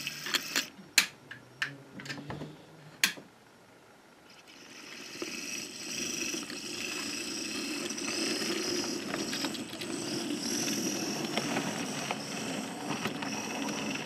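Planet Industrials Kerr Stuart Victory 0-6-0 tank locomotive, an OO gauge model, running on its track with a train of vans. There are a few sharp clicks in the first three seconds, then from about four seconds in the steady running noise of its motor and wheels on the rails.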